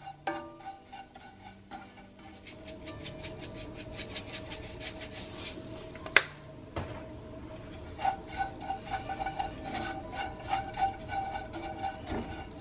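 A wooden spoon scraping and stirring small dried anchovies and almonds in a frying pan, in quick even strokes, with one sharp knock about six seconds in. Soft background music plays under it.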